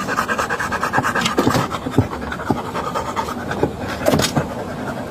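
Pit bull panting hard and fast, a dog shut in a truck in the heat, with a few sharp knocks scattered through.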